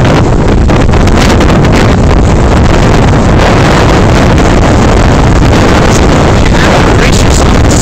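Strong wind buffeting the microphone, a loud, steady rumbling rush.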